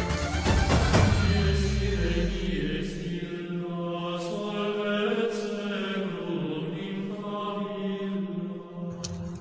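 Dramatic background music: a deep boom near the start that dies away over about three seconds, then slow, chant-like long held notes that cut off near the end.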